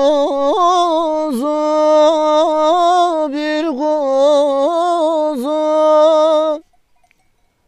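A man singing a Turkish folk song (türkü) with no instruments, holding a long, ornamented, wavering note on the word 'kuzu'. The voice breaks off about six and a half seconds in, and near silence follows.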